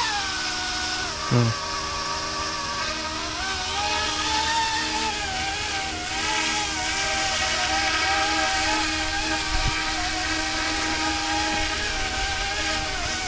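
YUXIANG F09-S electric scale RC helicopter whining steadily as its motor and rotors lift it off and carry it in flight, the pitch wavering up and down as it climbs and manoeuvres. A brief loud low falling sound comes just over a second in.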